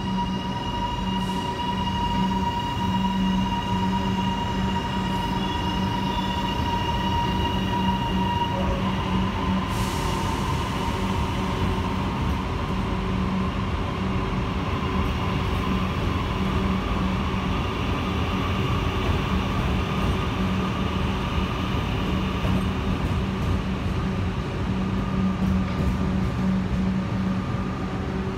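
High Capacity Metro electric train pulling out of the platform and running past, its carriages clattering by under a steady whine that steps up slightly in pitch about eight seconds in.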